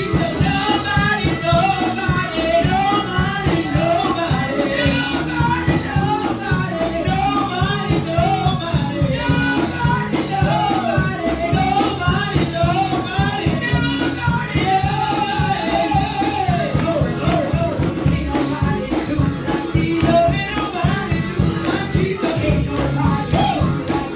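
Gospel praise music: singing over a band with a steady beat and a tambourine.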